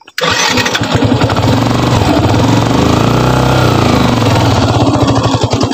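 Motorcycle engine running close up, coming in suddenly just after the start, its pitch rising and falling once around the middle as the throttle is opened and eased off.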